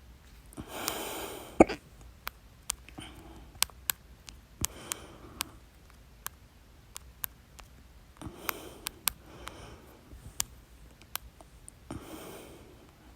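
A loud human hiccup, a sharp abrupt gulp, about a second and a half in, right after an inhaled breath, during a stubborn bout of hiccups. Softer breaths and a scattering of faint sharp clicks follow.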